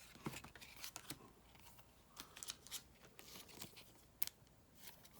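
Faint handling noise of trading cards and a foil booster pack: scattered light clicks and taps at irregular intervals.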